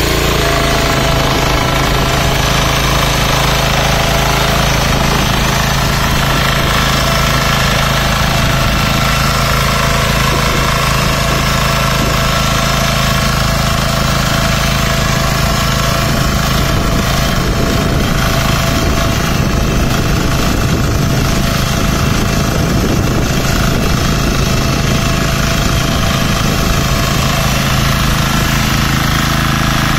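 Texas Alligator 9DPE power weeder's engine running steadily under load while its rotor tills a flooded, muddy paddy field.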